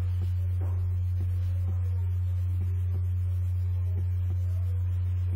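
A steady low electrical-sounding hum, with faint scattered ticks above it.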